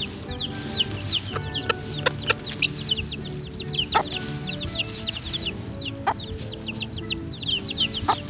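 Baby chicks peeping continuously, a rapid string of short, high chirps that each fall in pitch, with a few sharp clicks among them. Background music plays underneath.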